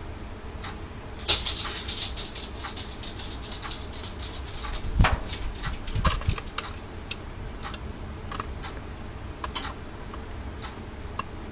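An Easy Mac cup boiling in a running microwave oven: a steady low hum under irregular ticks and crackles from the steam-lifted lid and the boiling water. A dense run of crackles comes about a second in, with a heavier knock about five seconds in.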